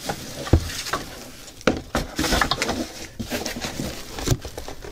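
Packaging being handled in a cardboard shipping carton: plastic bubble-wrap crinkling and cardboard boxes scraping and bumping, with a few sharp knocks.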